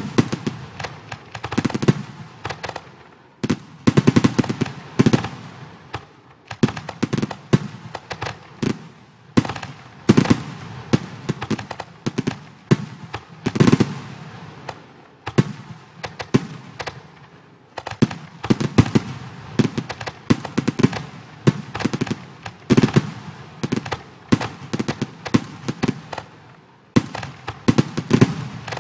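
Fireworks sound effects from a computer fireworks-display program: shell bursts going off in a continuous series of sharp bangs, often several in quick succession, each trailing off briefly.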